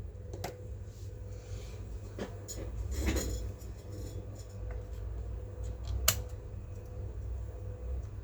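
Scattered small clicks and taps of hands handling a laptop's parts and tools, with a brief rattle about three seconds in and a sharp click near six seconds, over a low steady hum.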